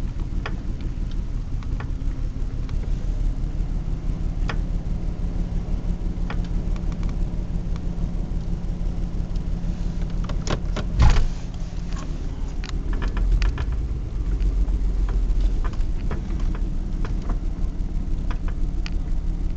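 Car running along a rough road: a steady low engine hum with scattered clicks and rattles, and one loud thump about eleven seconds in.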